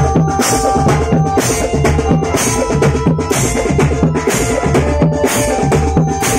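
Marching drum band playing: bass drums and snare drums beating an even rhythm of about two strokes a second, with cymbal-like splashes and held melodic notes over the beat.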